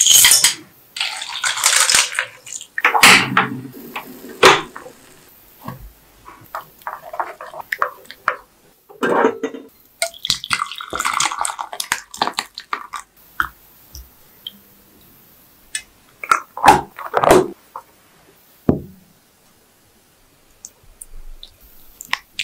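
Kitchen food-preparation sounds in short takes: sugar poured onto pineapple chunks in a saucepan, then pineapple and syrup poured into a glass dish, with splashing liquid and scattered knocks and clinks.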